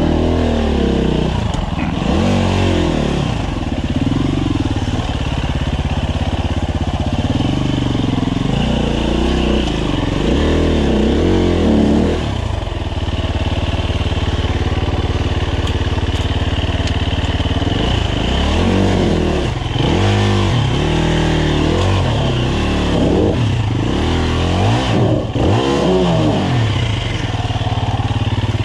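2015 Husqvarna FE 350's single-cylinder four-stroke engine revving up and down again and again as the throttle is worked on a dirt trail, with a steadier stretch of even throttle about halfway through.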